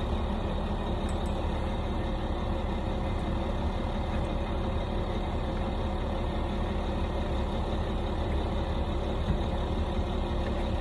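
Steady low mechanical hum that holds even throughout, with a few faint small clicks in the first half.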